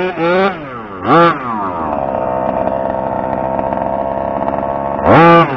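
The two-stroke engine of a 1/5-scale gas RC truck under throttle. It blips up and back down about a second in, runs at a steady speed for a few seconds, then revs up sharply again near the end, the loudest moment.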